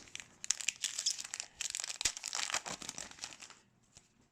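A trading-card pack wrapper being torn open and crinkled by hand, a dense crackling that stops about three and a half seconds in.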